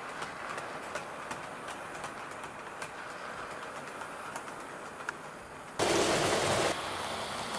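Model train running on the layout track: a steady rolling rumble with scattered sharp clicks from the wheels on the rails. Near the end, a loud rushing noise cuts in for about a second.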